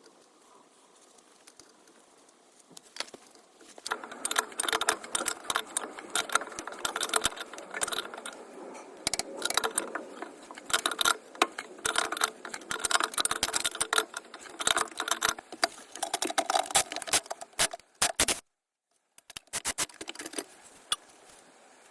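Hand tools working on metal: rapid, irregular metallic clicking and clattering that starts about four seconds in, with a brief dropout near the end.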